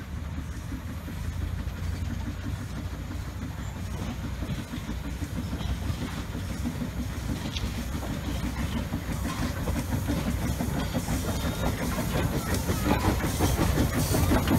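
Small narrow-gauge steam locomotive hauling open passenger cars, running toward and past the listener. The rumble of the train on the track grows steadily louder as it nears.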